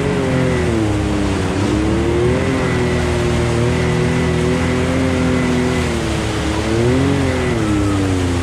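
Can-Am Maverick X3 X MR Turbo RR's turbocharged three-cylinder engine running under load while wading a shallow creek, the revs rising near the start and again about seven seconds in, with water splashing off the tyres.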